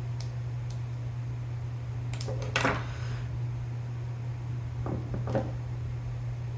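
Light clicks and clinks of small tools and parts being handled on a workbench: a few scattered taps, the loudest about two and a half seconds in and another pair around five seconds, over a steady low hum.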